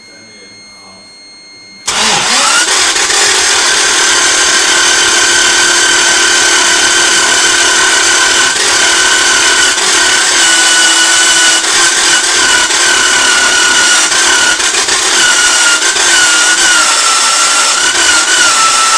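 Toyota 4A-GZE supercharged 1.6-litre four-cylinder engine being cranked on its starter motor for about seventeen seconds, starting about two seconds in, without catching. It spins over too easily, which the owner takes as a sign that something went wrong when the head was refitted; he believes the timing is correct.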